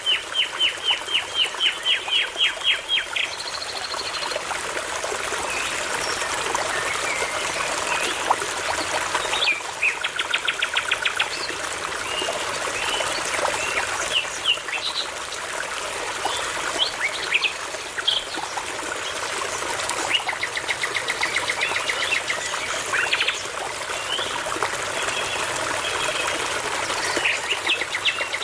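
Several songbirds singing over the steady rush of a babbling brook. Fast trains of repeated notes open the song and come back twice more, with scattered chirps and whistles between them.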